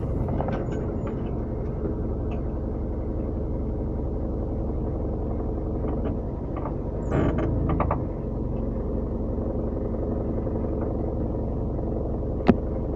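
Car on the move: a steady low engine and road rumble, with scattered light clicks, a short louder noisy patch about seven seconds in, and a sharp click near the end.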